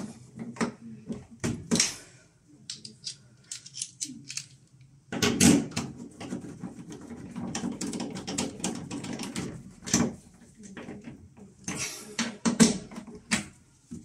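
Irregular metal clicks and scrapes of an 8 mm socket wrench tightening the door-hinge screws on an LG front-loading washing machine, thickest from about five to ten seconds in.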